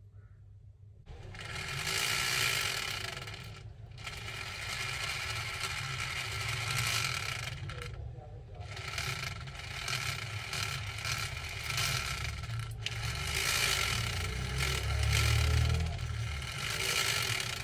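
Toy RC car's small DC motor driving its plastic gearbox: a whirr with a steady whine that starts about a second in and stops briefly three times. The gearbox was just repaired because the motor was not engaging the shaft, and now runs, though not perfectly.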